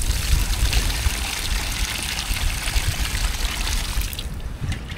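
Water spraying from a small battery-powered bait-bucket pump and splashing onto sand, a steady hiss that stops about four seconds in. Wind rumbles on the microphone underneath.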